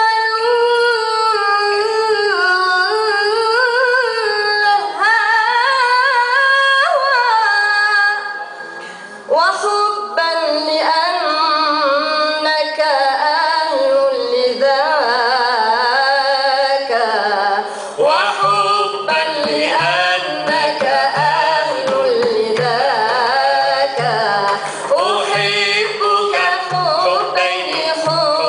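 A woman sings an ornamented Arabic Sufi melody, mostly unaccompanied, with long held notes sliding between pitches and a brief break about eight seconds in. In the last third, a low, evenly pulsing part enters beneath the voice.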